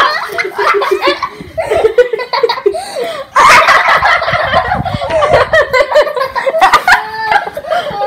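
A group of young children laughing together, many giggles overlapping; it gets louder about three and a half seconds in.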